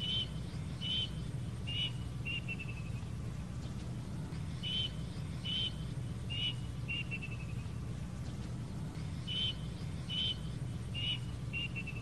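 Plaintive cuckoo calling three times. Each phrase is four clear whistled notes, then a quick run of shorter notes that speeds up and falls in pitch. A steady low hum sits underneath.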